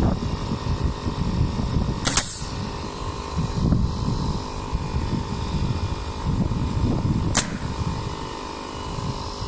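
Framing nail gun firing twice into a plywood subfloor over floor joists: two sharp shots about five seconds apart, the first followed by a short hiss, over steady low background noise.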